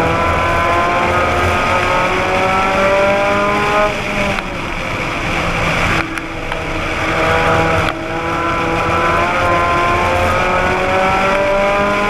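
Race car engine heard from on board at racing speed. The engine note climbs steadily as the car accelerates, drops off sharply about four seconds in as the driver lifts, and runs lower through the turn. It climbs again from about eight seconds in, over steady road and wind noise.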